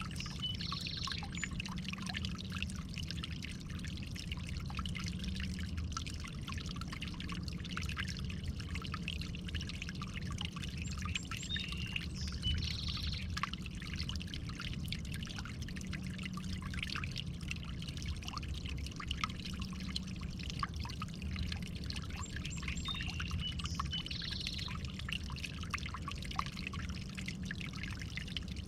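Water trickling and splashing steadily. A short high bird call comes three times, about eleven seconds apart.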